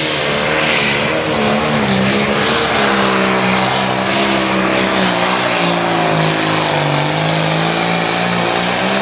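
A 640-cubic-inch turbocharged diesel Limited Pro Stock pulling tractor running at full throttle as it pulls the weight-transfer sled down the track. The engine note is loud and steady, wavering slightly and sagging a little late on before picking back up.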